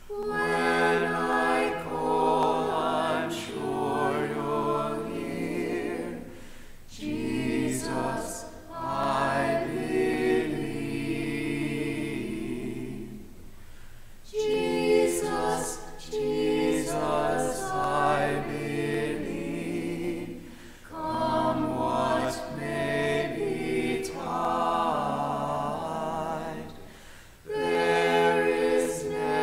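A small mixed group of men's and women's voices singing a hymn together, in phrases with short breaks between them.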